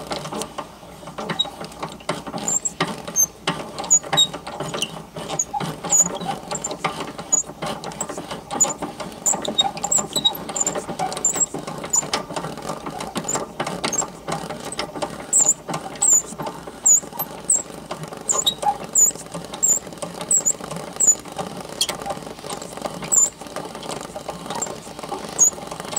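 Hand-cranked Mutoscope running: its reel of picture cards flaps past the stop in a dense rattle of clicks, over the whir of the crank gearing. Short high squeaks repeat about once a second.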